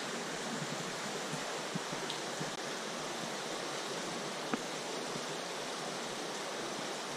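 Steady rushing of a stream's running water, with a few faint clicks.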